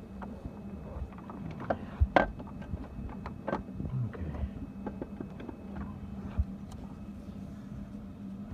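Scattered knocks, clunks and scrapes of a replacement car alternator being worked and wiggled into place in the engine bay, the loudest a pair of knocks about two seconds in, over a steady low hum.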